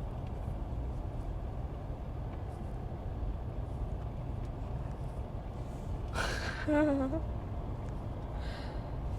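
Steady low road and engine rumble inside a moving car's cabin, at low speed. About six seconds in comes a brief wavering vocal sound from someone in the car.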